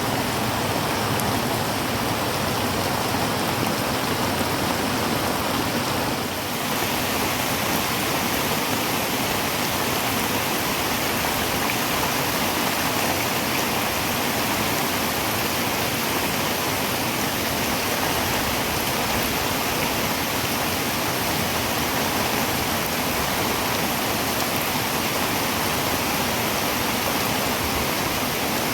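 Heavy rain falling on a tin roof: a steady, dense hiss with no break. About six seconds in the level dips for a moment, then the hiss carries on slightly brighter.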